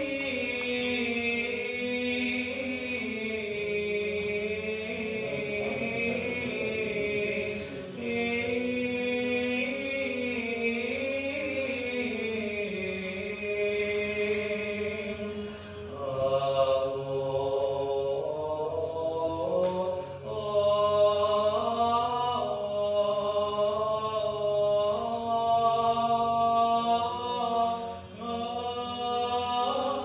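Unaccompanied sung chant: long melodic vocal lines held over a lower sustained note, with a new phrase beginning about halfway through.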